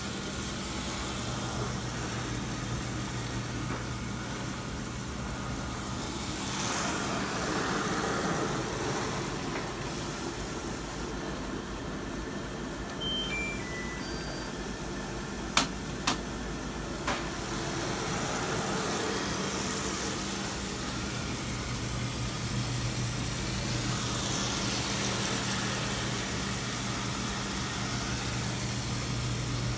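Water running into a Samsung washing machine through its inlet valve, with a steady low hum underneath. The fill does not stop, the sign of a shorted water valve solenoid. About halfway through, a short run of falling electronic beeps sounds, followed by two sharp clicks and then one more.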